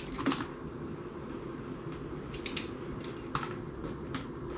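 A few light, irregular clicks and taps as the parts of a blaster shell are handled during assembly, over a steady low hum.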